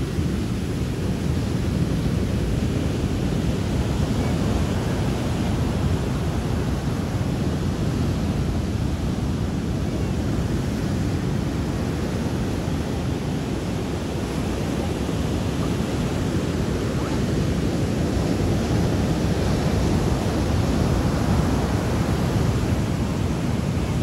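Sea waves breaking on a beach: a deep, continuous wash of surf that swells a little louder in the second half.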